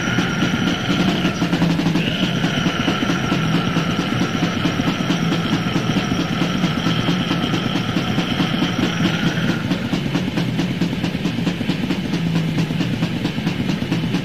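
Death/black metal demo recording with distorted guitars and fast, dense drumming at a steady pulse. A high held tone sits over it, breaks off briefly about two seconds in, and stops about ten seconds in.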